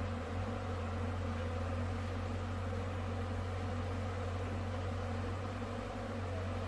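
Steady drone of a honeybee colony buzzing around its combs as they are smoked.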